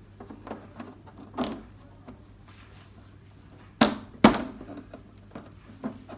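Light plastic handling sounds as a TV's plastic front bezel is fitted over the screen, with two sharp plastic clicks about half a second apart roughly four seconds in.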